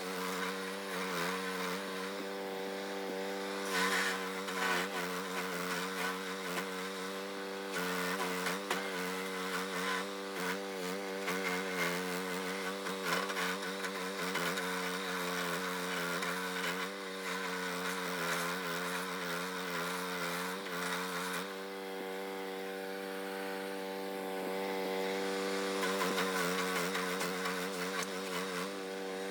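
Engine running steadily at a constant speed, its tone shifting abruptly about 8 seconds in and again about 21 seconds in.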